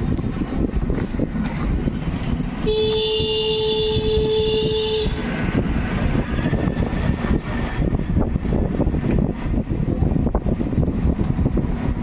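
A vehicle horn sounds once, a single steady note held for a little over two seconds, about three seconds in. It rises over a constant low rumble of wind and road noise.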